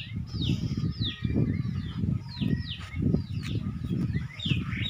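Small birds chirping over and over, short falling chirps several a second, over a low rustling and crunching from goats pulling at and chewing freshly cut tree leaves.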